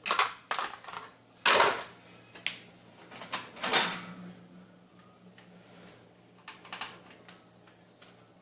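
Dishes clinking and clattering as they are lifted out of a dishwasher and handed over: a run of sharp knocks and short rattles in the first four seconds, then a few lighter clicks near the end.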